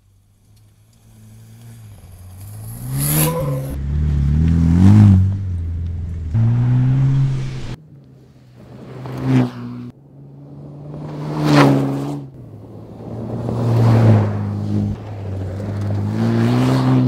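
Bowler Defender Challenge rally car, a Land Rover Defender 90 with a 2.0-litre turbocharged Ingenium petrol four-cylinder and Bowler sports exhaust, driven hard on a dirt stage. The engine note climbs and drops repeatedly through gear changes, and the car goes by several times, each pass a loud rush of noise.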